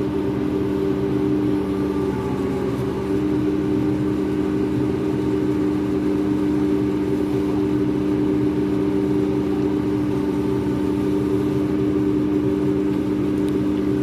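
The ship's machinery running with a steady, even-pitched hum.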